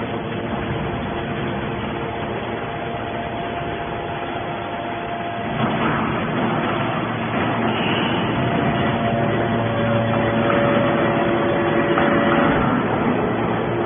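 Hydraulic metal baler running: a steady machine drone with a hydraulic pump's held whine, which changes pitch about six seconds in and grows a little louder as the press works under load.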